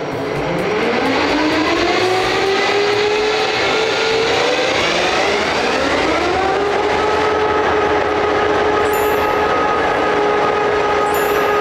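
Diesel-electric locomotive's engine starting up, loud inside the cab: a whine rising in pitch over the first few seconds, rising again about six seconds in, then settling into a steady run.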